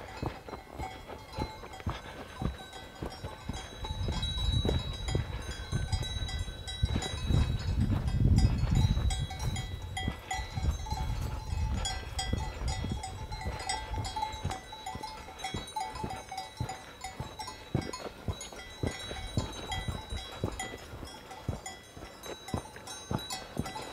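Bells on grazing livestock clanking and ringing continuously, with regular footfalls on the trail. Wind rumbles on the microphone from about 4 to 12 seconds in.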